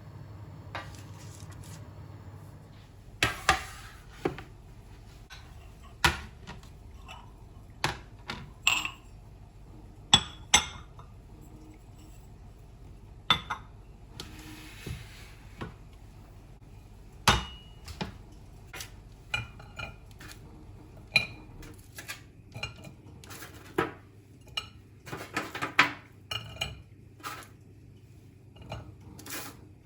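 Dishes and cutlery clinking and knocking at irregular intervals: sharp clinks, some with a short ring, a few in quick clusters.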